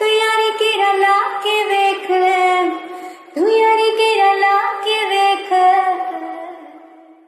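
A young woman singing long, held notes with pitch runs, in two phrases with a short breath between them, the second fading away near the end.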